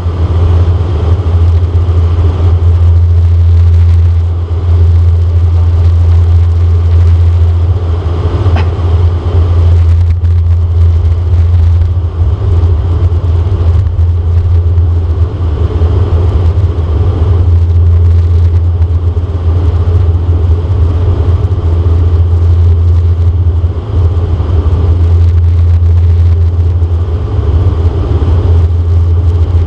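Dash 8 Q400 turboprop's six-bladed propellers and Pratt & Whitney PW150A engines droning steadily, heard inside the cabin as a loud low hum with airflow noise over it.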